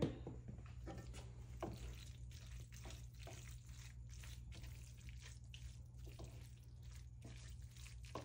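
Wooden spoon stirring and turning buttered egg noodles in a copper-coloured nonstick frying pan: faint, irregular scrapes and soft wet taps over a low steady hum.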